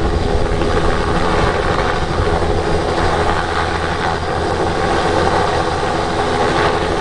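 Light helicopter running close to the ground, its rotor beating steadily over the steady whine of its engine.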